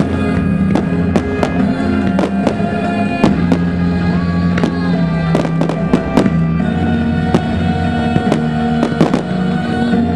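Fireworks going off in quick succession, with many sharp bangs and crackles throughout. They sound over music with long held notes.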